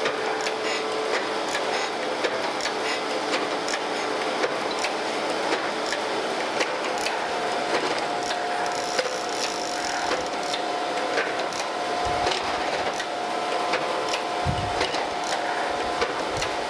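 Landis surface grinder running, its table stroking two cast straight edges back and forth under the spinning wheel: a steady hum with a rough hiss dotted with ticks, as the wheel just begins to scuff the paint on the castings' tops in a roughing pass. A few low thumps come in the last few seconds.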